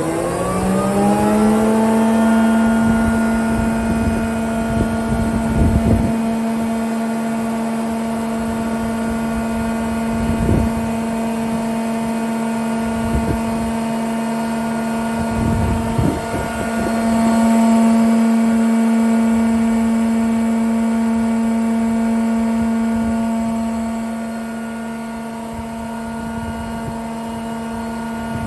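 ŻEFAM 40 jointer with its three-knife cutterhead spinning up to speed, its pitch rising over the first couple of seconds, then running steadily at a constant hum. A few short knocks sound now and then over the running machine.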